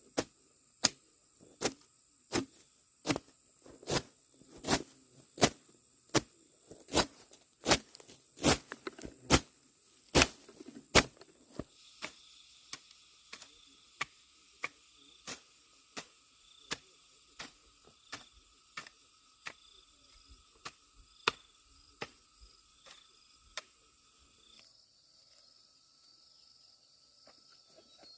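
Sharp, evenly spaced strikes, about one every 0.7 seconds, like a hand tool hitting something over and over; loud for the first half, then fainter and stopping about 24 seconds in. Steady insect trilling runs underneath.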